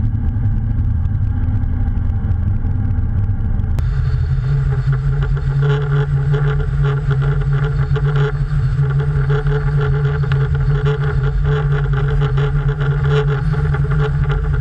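1982 GMC 3500 crew cab pickup driving at road speed, its engine a steady drone under road noise as heard inside the cab. About four seconds in the sound switches abruptly to a louder, hissier mix of engine, tyres and rushing air picked up by a camera mounted outside on the truck's side.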